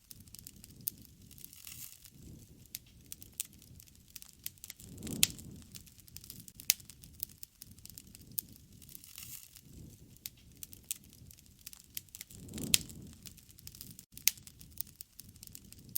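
Firewood burning in a campfire, crackling with sharp pops at irregular intervals. There are two brief low rumbles, about five and twelve seconds in.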